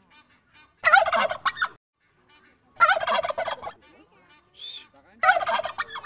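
Domestic turkey toms gobbling three times, each gobble a rapid warbling call under a second long, about two seconds apart.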